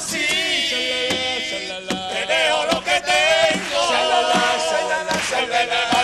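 Several men's voices singing together as a chorus, held notes wavering in pitch, with scattered sharp percussive hits through the singing.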